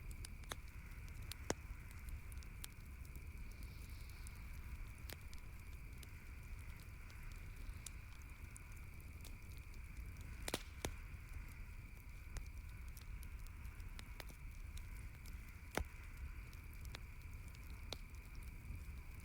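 Campfire crackling, with scattered sharp pops, three of them louder than the rest, over a steady low hiss.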